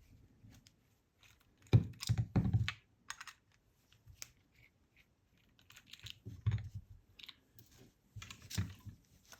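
Clicks and knocks of a lock cylinder being handled as a holder is taken off it, with a few louder clusters of knocks about two seconds in and again near the end.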